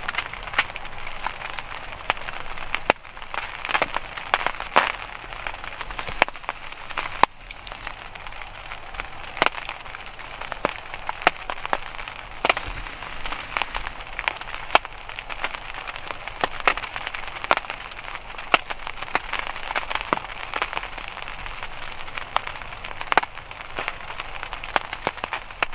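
Rain pattering on a surface: a steady hiss with many irregular sharp drop ticks.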